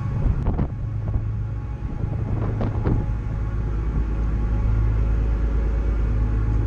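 An engine running steadily with a low, even rumble, with a few short clicks about half a second in and again near three seconds.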